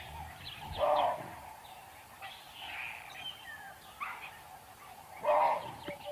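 Birds chirping and whistling in short calls, with a lower, louder call twice: about a second in and again near the end.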